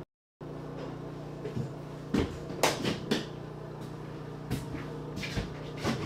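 About half a dozen knocks and clunks of objects being handled at a kitchen counter, the loudest a little over two and a half seconds in, over a steady low hum of room tone.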